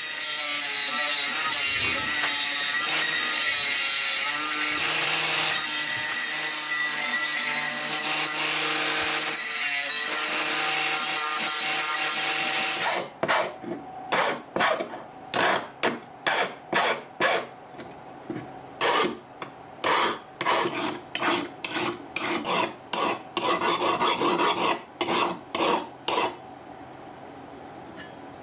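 Angle grinder running and grinding into a 1.2235 chrome-vanadium steel knife blank held in a vise, a loud, continuous grinding whine that lasts about 13 seconds. It stops abruptly and gives way to a hand file rasping along the steel blade in even strokes, about two a second, which stop a couple of seconds before the end.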